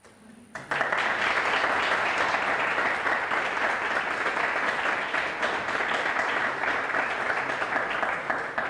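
Audience applauding, a dense patter of many hands clapping. It starts about a second in and begins to die away near the end.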